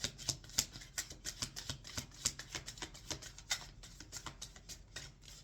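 A deck of tarot cards being shuffled by hand: a rapid, irregular run of card flicks and slaps.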